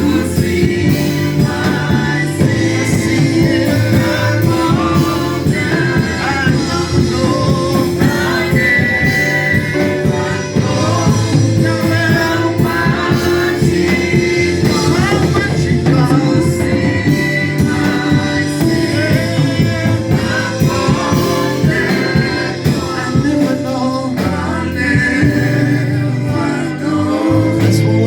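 Gospel choir singing with band accompaniment and a steady driving beat.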